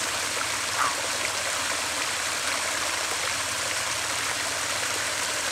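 Water pouring steadily over a pond spillway after rain, a constant even rush of flowing water.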